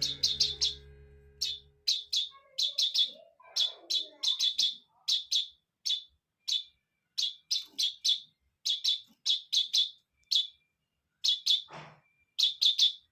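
Oriental greenfinch fledgling giving short, high begging calls while being hand-fed. Each call drops quickly in pitch, coming in uneven runs of several a second. A single dull knock sounds near the end.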